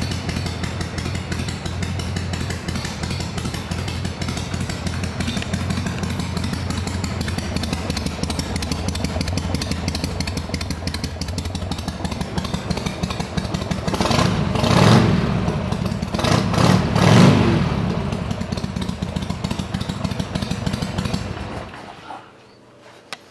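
Harley-Davidson XL883 Sportster's V-twin, fitted with Screamin' Eagle pipes, idling. The throttle is blipped twice about two thirds of the way through, then the engine is switched off and stops abruptly near the end.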